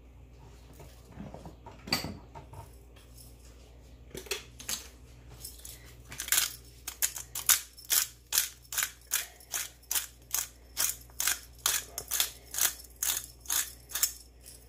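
Hand-twisted pepper mill grinding black peppercorns. After a few scattered clicks and knocks, it settles about six seconds in into a steady run of short crunching twists, about three a second.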